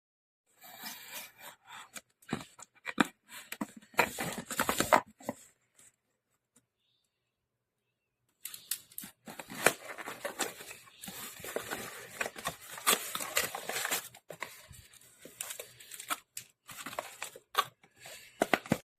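Packaging being torn open and crinkled by hand, in two long stretches of rustling and tearing with a pause of about two seconds between them.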